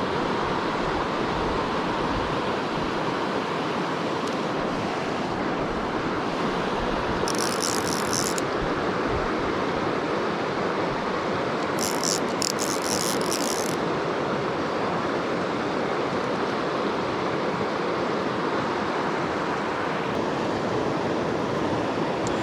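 Creek water rushing steadily over rocks. Twice, a short high-pitched rattle is heard over it.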